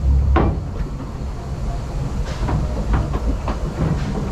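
Narrow-gauge railway carriage running on the rails: a steady low rumble with irregular sharp knocks and clunks from the wheels and running gear.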